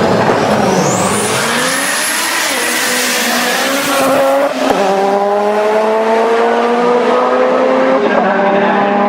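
Drag-race car engine accelerating hard down the strip, its pitch climbing and dropping back at a gear change about halfway through and again near the end. A high whine rises and holds for the first few seconds.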